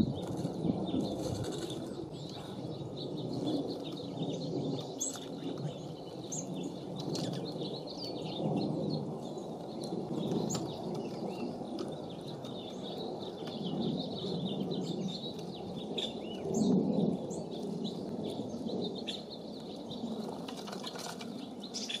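Wind gusting on the microphone, with small songbirds giving short high chirps and calls scattered throughout.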